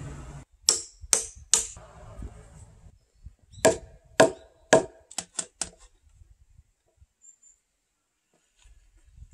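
Hammer blows on timber, as a diagonal wooden brace is fixed to a standing timber post: three strikes, a pause, three harder strikes, then a quick run of three lighter taps.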